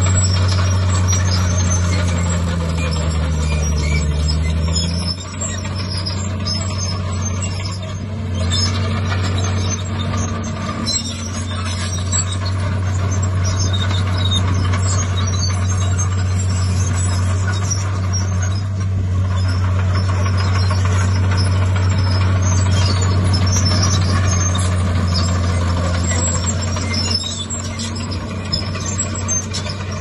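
Heavy diesel earthmoving machinery, a Komatsu D51PX crawler bulldozer with a dump truck, running under load with a steady low engine drone. The engine note dips and shifts about five seconds in.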